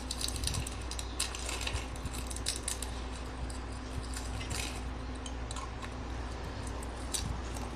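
A blade cutting and scraping into a brittle, crumbly block, giving a run of irregular crisp crackles and ticks over a low steady hum.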